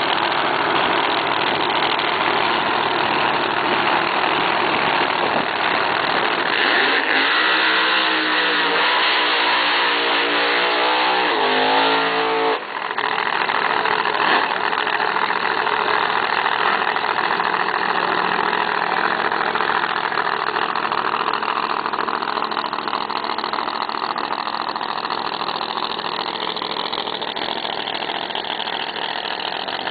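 Drag racing car engines running loud at a drag strip. From about seven seconds in, one engine's note climbs as the car accelerates, then it breaks off sharply about twelve seconds in. Steady engine noise follows and slowly fades.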